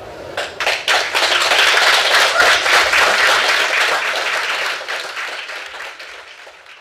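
Audience applause at the end of a talk: a few scattered claps, then a full round of clapping that swells within a second, holds, and fades out near the end.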